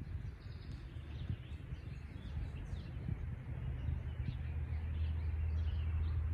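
Outdoor ambience: scattered bird chirps over a low, steady rumble that swells slightly toward the end.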